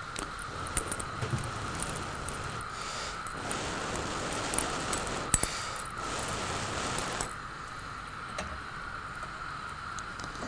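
Steel kitchen tongs clicking and rattling against a gas stove grate while a lump of charcoal is held in the burner flame to light it, with several seconds of hissing through the middle.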